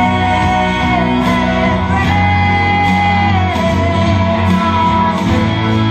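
Music with guitar, carrying amplified singing by a group of singers in long held notes that slide between pitches.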